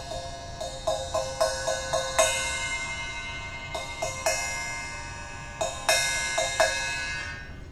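A new copper-coloured cymbal, held by hand, struck again and again: a quick run of taps in the first two seconds, two more a little later, then a cluster of four or five near the end. It rings on between the strikes with clear, bell-like tones, and the ringing dies away after the last hits.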